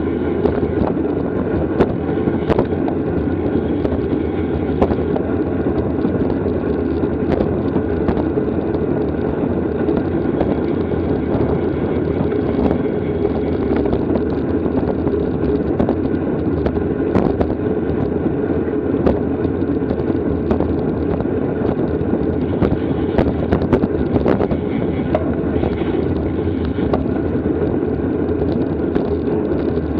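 Steady wind rush over the microphone of a camera riding along on a racing bicycle, with scattered small clicks and knocks.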